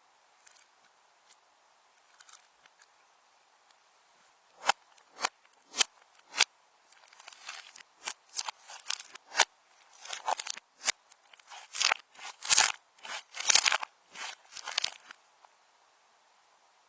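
Slime being squeezed and kneaded by hand, giving a run of sharp clicking pops that starts a few seconds in, grows denser and louder, and stops shortly before the end.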